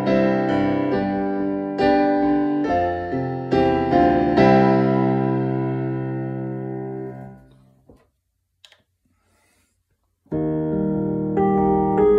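Oberheim MiniGrand piano sound module playing piano chords and notes. A last chord rings out and fades over about three seconds into a brief silence, and playing starts again about two seconds before the end.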